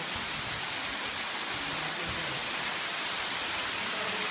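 Steady rushing of water from the cave's underground stream.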